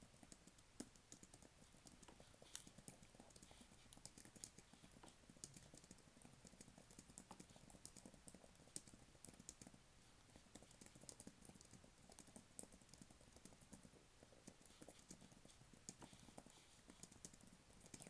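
Computer keyboard typing: a quick, irregular run of soft key clicks, several a second, with occasional louder keystrokes.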